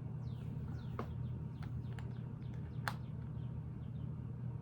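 Two sharp clicks of Lego plastic pieces being pressed into place, about a second in and just before three seconds, over a steady low hum. Faint high chirps, each falling in pitch, run through the first few seconds.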